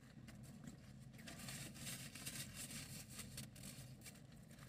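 Faint rustling and light clicks of takeout food packaging being handled as barbecue sauce is put on a sandwich, over a steady low hum.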